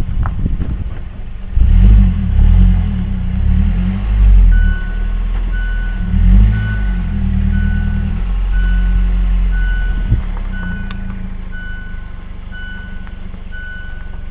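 Car's seatbelt reminder chime beeping steadily, about two short beeps a second, starting about four and a half seconds in, because a seatbelt is unbuckled. Under it the low rumble of the car moving, heaviest in the first half.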